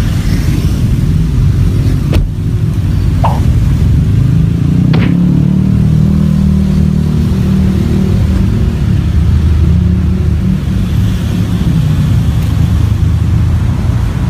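Loud, steady low rumble of street traffic and vehicle engines, with a sharp click about two seconds in and a couple of brief higher chirps soon after.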